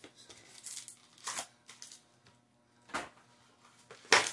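Foil Magic: The Gathering collector booster packs and their cardboard box being handled: a few scattered crinkles and rustles, the loudest about four seconds in.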